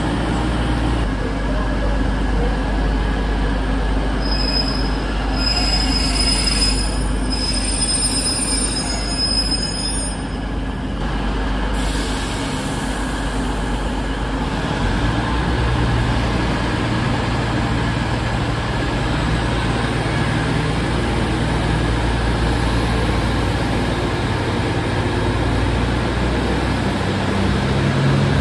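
CrossCountry Voyager diesel train running along the platform line with a steady rumble, its wheels squealing in thin high tones from about four to ten seconds in. Later a steady low rumble and hum from the station continues.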